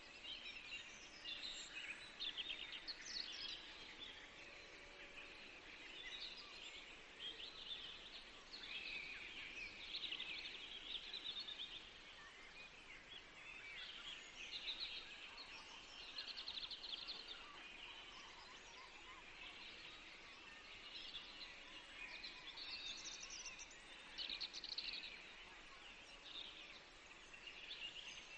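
Many small birds chirping, with short overlapping calls coming and going over faint outdoor background noise.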